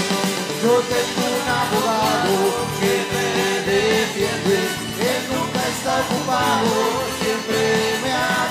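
A Spanish-language Christian song: a voice singing a melody over instrumental backing.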